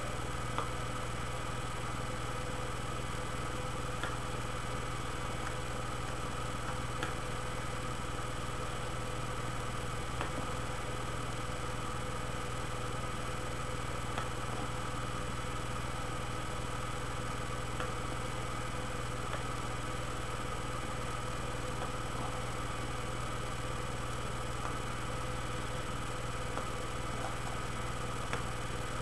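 A steady hum made of several constant tones, unchanging, with a few faint ticks scattered through it.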